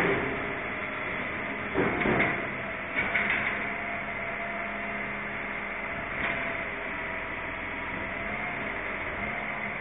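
Refuse collection truck running at the kerb during bin collection: a steady engine and hydraulic drone. Loud clanks and rattles come about two and three seconds in, with a lighter one about six seconds in.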